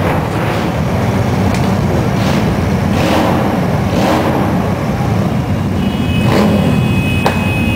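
Engines of many motorcycles running together in a steady low rumble, with several brief swells of engine noise rising out of it.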